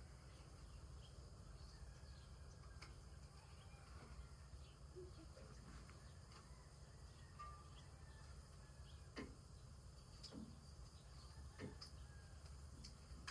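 Near silence: a steady low hum with a few faint clicks, three of them about a second apart in the second half.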